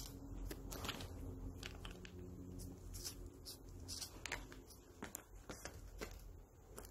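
Faint scratching and rustling of two Siamese cats scuffling on a person's lap, paws and claws catching on trouser fabric, in quick irregular scrapes and taps.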